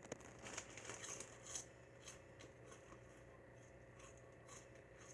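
Faint crinkling of a plastic snack bag being handled, a cluster of crackles over the first second and a half, then a few faint ticks.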